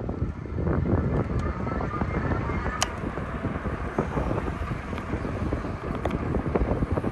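Wind buffeting the microphone of a camera riding on a moving bicycle, over a steady low road rumble with small rattling clicks throughout. There is one sharper click about three seconds in.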